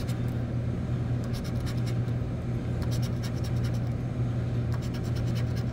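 Scratch-off lottery ticket being scratched with a small tool: about three short bursts of quick, dry scraping strokes as the latex comes off the number spots. A steady low hum runs underneath.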